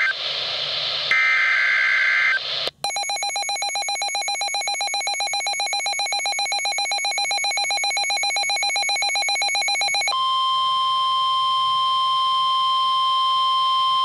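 Midland handheld NOAA weather radio sounding an Emergency Alert System activation for a test tornado warning. First come screechy SAME header data bursts, then the radio's own rapid pulsed alert beeping for about seven seconds. About ten seconds in it changes to the steady single-pitch 1050 Hz weather-radio warning alarm tone.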